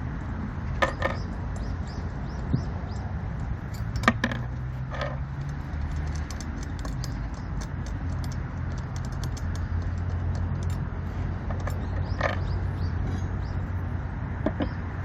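Metal parts of a portable log splitter clinking now and then as it is handled and packed away, over a steady low hum.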